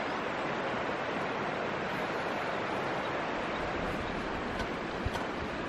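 Steady, even rushing of a stream's flowing water, with a couple of faint taps near the end.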